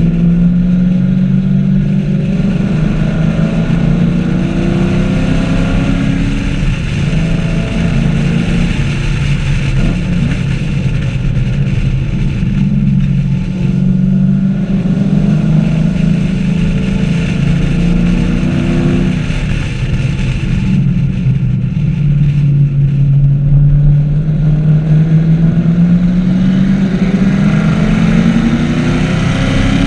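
Chevrolet Camaro 1LE's V8 engine running hard on track, its note climbing through the revs and dropping back several times as the car accelerates, shifts and slows for corners.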